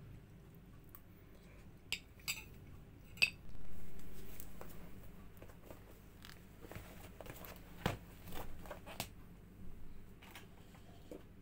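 A few sharp clinks of cutlery against dishes in the first few seconds, then scattered soft knocks and rustles of things being handled and packed into a handbag.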